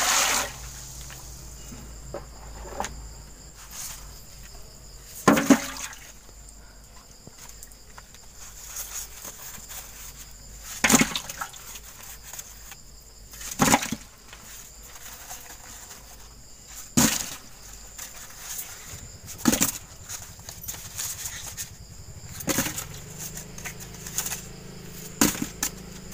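Wood fire burning under a cooking pot: a low steady rumble broken by sharp crackling pops every few seconds, about eight in all.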